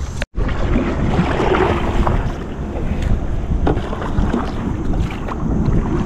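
Wind rumbling on the microphone over water noise from a small paddled boat on a river, with a few faint knocks. The sound drops out completely for a moment just after the start.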